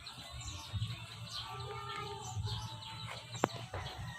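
Many short, high peeps from 45-day-old gamefowl chicks, overlapping one another over a low rumble, with a single sharp click about three and a half seconds in.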